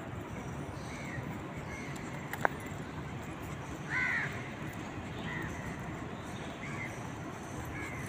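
A crow cawing about six times, short calls a second or so apart, the one about four seconds in the loudest, over steady background noise. A single sharp click about two and a half seconds in.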